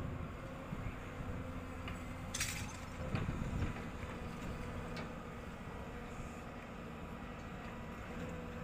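Excavator's diesel engine running steadily, with a sharp metallic clink about two and a half seconds in, followed by a short burst of knocks and rattling.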